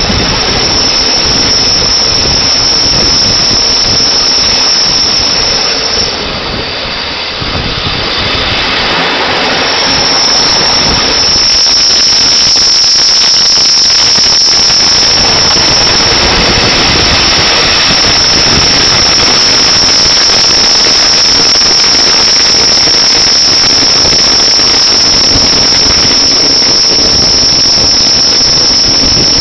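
Rhaetian Railway train running through a tight curve: a loud steady rush of wheel and running noise, with a continuous high-pitched wheel squeal on top. The squeal drops away for a few seconds about six seconds in and then returns and holds.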